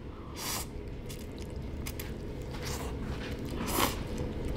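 A person slurping and chewing instant cup noodles eaten with chopsticks: a few short, soft slurps with chewing in between.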